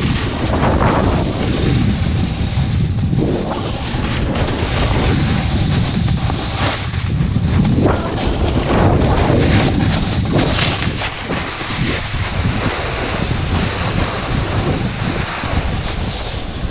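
Wind buffeting an action camera's microphone during a fast run down a snowy piste, over the hiss and scrape of the run across the snow, which swells and fades with the turns.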